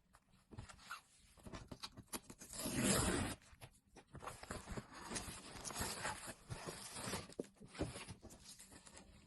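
Packaging being handled and torn open by hand: scattered clicks and crinkles, a longer louder rip about three seconds in, then a stretch of rustling and crinkling.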